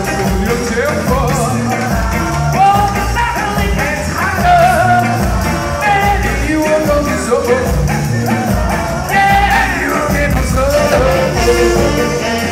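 Live ska band playing loudly, with a horn section of saxophones, trumpet and trombones over guitar and a steady bass beat, and several voices singing together.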